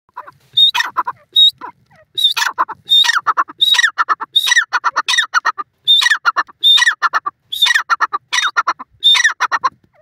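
Male grey francolin calling: a loud run of repeated shrill phrases, each a high note followed by a quick tumble of lower notes, about one phrase every three-quarters of a second. The calling stops just before the end.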